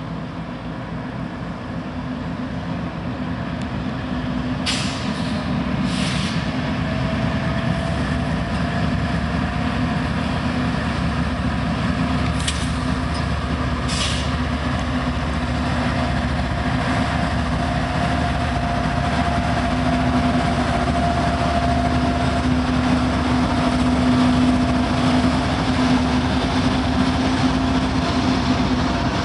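Freight train passing: two CSX diesel locomotives running as they approach and go by, followed by autorack cars rolling along the rails. The noise builds over the first few seconds and then holds steady under a low hum, with a few brief sharp clicks from the wheels on the track.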